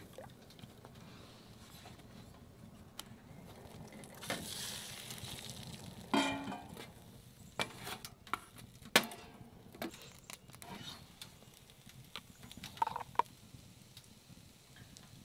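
French toast frying in a pan on a small wood stove: a faint sizzle for a couple of seconds, starting about four seconds in. Scattered clinks and knocks of metal pots and utensils run through it.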